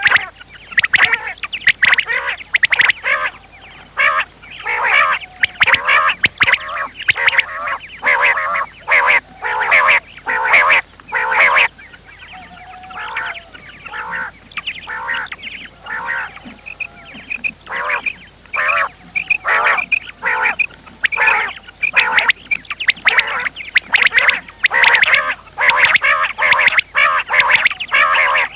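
Birds calling: short harsh calls in quick succession, several a second, with a quieter spell of fainter calls about halfway through.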